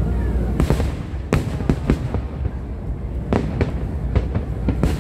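Aerial fireworks bursting: about a dozen sharp booms and cracks at irregular intervals, over a steady low rumble.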